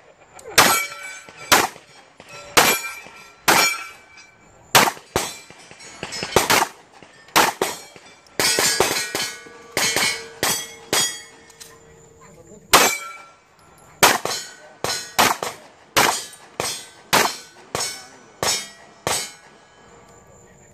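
A string of gunshots, each often followed by the ringing clang of a struck steel target plate. The shots come roughly once a second, with quicker runs in the middle.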